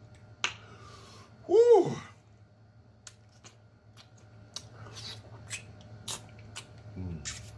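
A man's drawn-out 'mmm' of enjoyment, rising then falling in pitch, about one and a half seconds in, the loudest sound. Then a run of wet lip-smacking and sucking clicks as he picks at sticky pig feet with his fingers and sucks his fingertips, with a shorter hum near the end.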